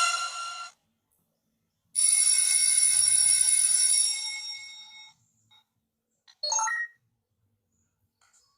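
Comic sound effects played one after another from a video editor: one ends just under a second in, then a ringing, telephone-like electronic tone sounds for about three seconds and fades out, and a brief effect follows about six and a half seconds in.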